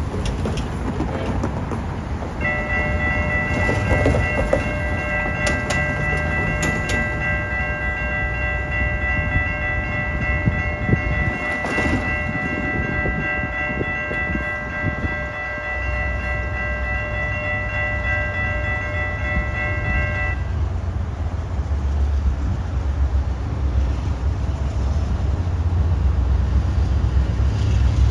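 Amtrak GE Genesis diesel locomotive's multi-chime air horn held as one long, unbroken chord for about eighteen seconds as the train approaches the crossing. After the horn stops, the locomotive's low diesel rumble grows louder as it draws near.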